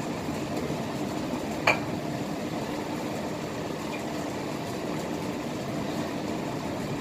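Steady hum and hiss of a kitchen range hood fan over green vegetables cooking in a wok, with one sharp clink, typical of chopsticks against the wok, about one and a half seconds in.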